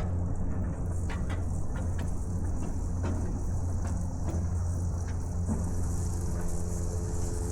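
Ice on frozen water making scattered sharp ticks and pings, several in the first few seconds, over a steady low hum.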